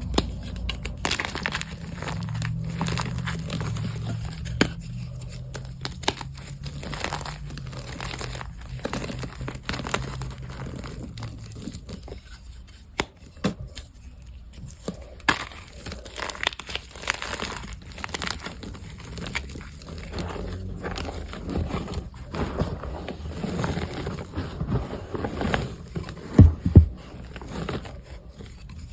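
Reformed gym chalk blocks crunching and crumbling as they are crushed by hand into a wet chalk mix. There is a steady run of crackling, with a couple of louder cracks near the end.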